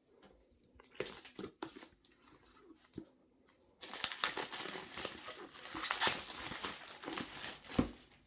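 Product box packaging being cut open with a knife and pulled apart: a few faint scratches and taps, then from about four seconds in a continuous crinkling and tearing, ending with a thump near the end.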